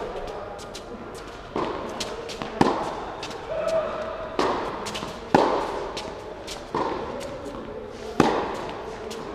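Tennis rally: racket strikes and ball bounces about once a second, echoing around an indoor tennis hall. The loudest is a stroke close by, about eight seconds in.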